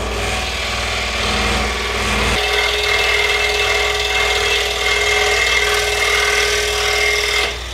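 Excalibur scroll saw running, its blade stroking up and down as it cuts a wooden pattern piece. The low hum drops away a couple of seconds in, and the saw stops shortly before the end as the last piece is cut free.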